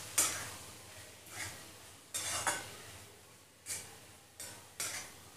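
Steel spatula stirring puffed rice in a metal kadhai: six or seven irregular scrapes of metal on metal, with the dry grains rustling.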